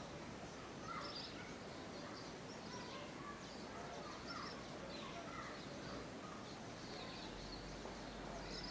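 Faint birds chirping now and then over a low, steady background hiss.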